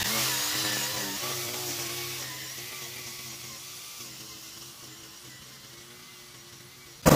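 String trimmer running while edging along a curb, its motor note wavering slightly and fading steadily as it moves away. Right at the end a much louder engine cuts in suddenly.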